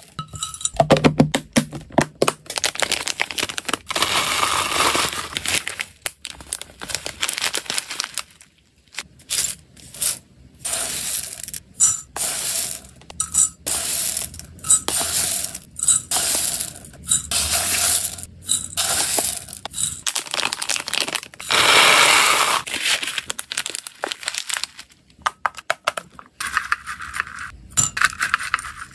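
Dry hamster foods scooped with plastic scoops and poured into a glass cup, in irregular bursts of rattling and clinking with short pauses between. The herbal mix comes first, black sunflower seeds tick and clink against the glass in the middle, and short dried sticks clatter in near the end.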